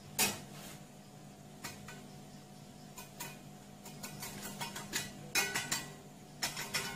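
Irregular metallic knocks and clinks as a casting flask is struck to break a cast aluminium knife shank out of its mould: one sharp hit at the start, then scattered taps that come faster and in clusters in the second half.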